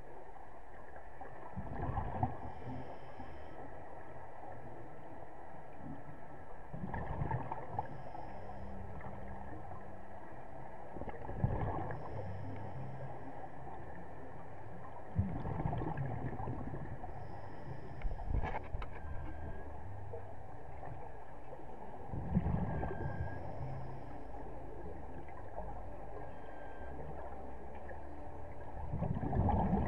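Scuba diver's regulator breathing underwater: a gurgling rush of exhaled bubbles every four or five seconds over a steady low underwater rumble, heard through the camera housing.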